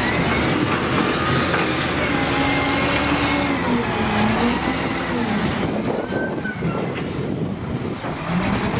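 Caterpillar 966H wheel loader's diesel engine running hard under load as the bucket pushes into concrete-block walls, its pitch rising and falling, with a few sharp knocks of breaking blocks.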